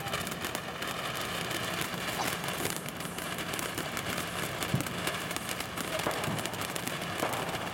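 Fire Hawk firework fountain burning, spraying sparks with a steady rushing hiss and dense, fast crackling.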